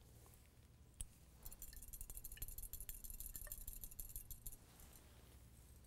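A glass test tube held in a metal wire test-tube holder clicks once, then is shaken for about three seconds in a fast, faint clinking rattle: a phosphate salt being dissolved in water to make a solution.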